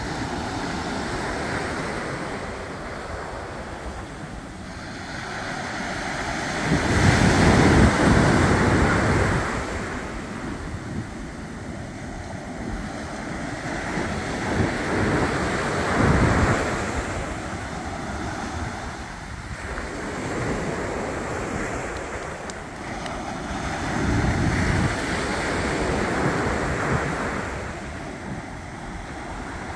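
Ocean surf breaking and washing up a sandy beach, rising and falling in swells every few seconds and loudest about seven seconds in, with wind gusting on the microphone.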